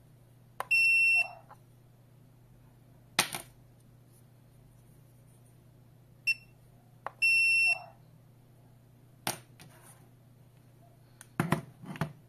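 Wireless touch keypad with an RFID reader giving its acknowledgement beeps: a half-second high beep about a second in, then a short beep and a second half-second beep around six to eight seconds, each long beep preceded by a click. Sharp clicks of handling fall between them, and a few knocks near the end as the keypad is set down on the desk mat.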